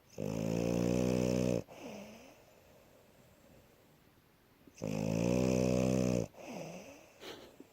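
A sleeping French bulldog snoring. There are two long snores about four seconds apart, each lasting about a second and a half, and each is followed by a softer, wavering breath out.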